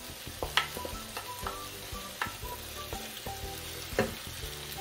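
Wooden spatula scraping ground spice paste out of a mixer jar into a pan of chicken sizzling in masala, with several sharp knocks of the spatula against the jar.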